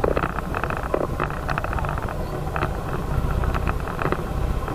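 Low, steady wind rumble buffeting the microphone, with many short clattering knocks scattered through it, around a large ferry rolling heavily in rough water.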